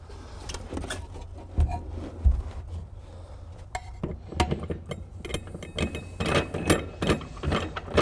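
Spare tire on a steel wheel set down into the cargo-floor well with a couple of dull thumps. Then the plastic hold-down knob is spun down the center post, giving a rapid run of clicks that grows busier toward the end.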